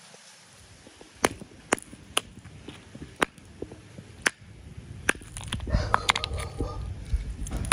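Block of ice being broken apart on concrete: sharp single cracks and knocks every half second to a second, then a denser run of cracking and crunching as chunks break off around the frozen toy cars.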